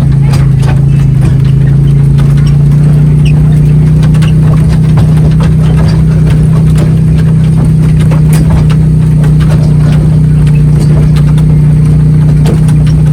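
An engine running steadily with a loud, even low hum, with light clicks and rattles over it.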